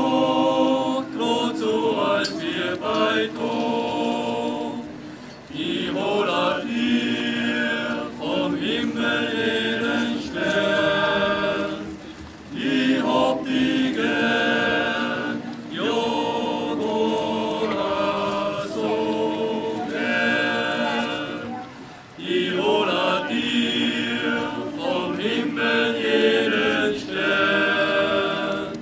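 A group of voices singing a song in several-part harmony, in phrases with short breaks about 5, 12 and 22 seconds in.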